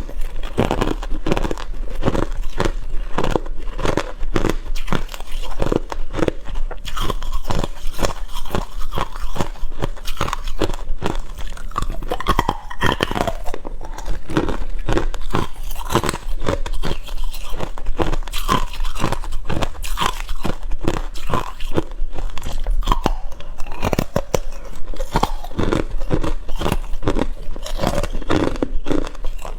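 Ice being bitten and chewed close to the microphone: a continuous run of loud, irregular crunches, several a second.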